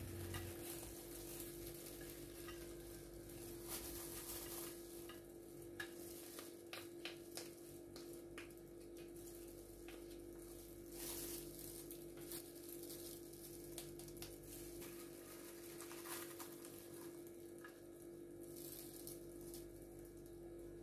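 Faint clicks and scrapes of a plastic spoon stirring seasonings in a small plastic bowl, over a steady low hum.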